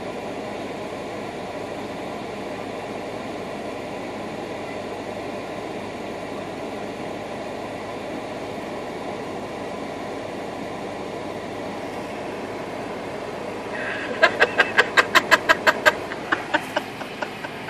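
Steady hum of a running car heard from inside its cabin. Near the end comes a fast run of about a dozen sharp, even pulses over two seconds, then a few slower, fading ones.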